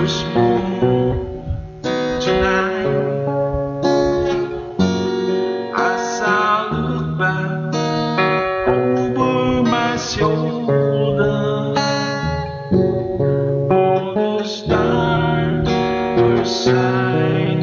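Acoustic guitar strummed in a slow ballad, with a man singing along; the chords change about every two seconds.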